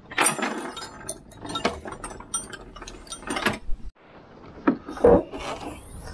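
Metal tools clinking and clattering as they are handled in a cupboard. After a short break come two knocks as the Jaguar XF's bonnet is released and lifted open.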